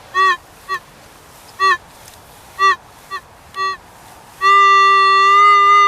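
Metal detector target tones: a series of short, irregularly spaced electronic beeps, then a loud continuous tone starting about three-quarters of the way in as the coil locks onto the target.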